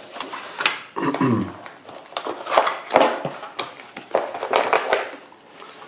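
Cardboard box and paper packaging being handled: irregular rustling, scraping and light knocks as the instruction manual and a cardboard insert are lifted and moved.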